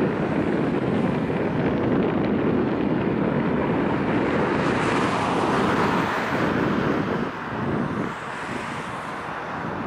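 Bombardier CRJ700's twin General Electric CF34-8C turbofans at takeoff power as the jet rolls down the runway: a steady jet roar that eases off about eight seconds in.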